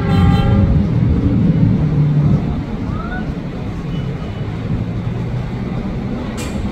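Low rumble of a train on the line, strongest for the first two seconds or so and then easing off. A short high pitched tone sounds right at the start, and there is a sharp click near the end.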